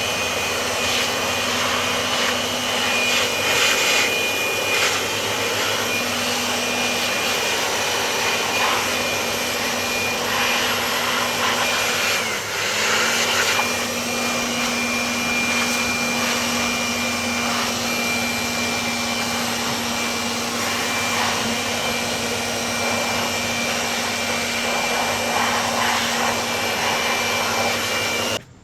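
A high-speed electric motor, such as a power tool, running steadily with a noisy whir and a constant high whine over a lower hum. It dips briefly about twelve seconds in and cuts off suddenly near the end.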